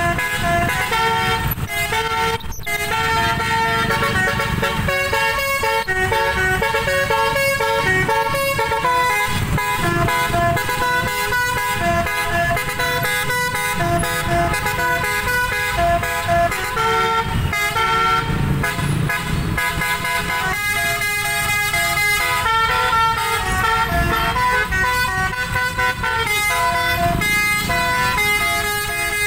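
Basuri melodic bus horn on a Sanjaya Trans tour bus playing a tune, one held note after another at changing pitches, over the low rumble of engines in traffic.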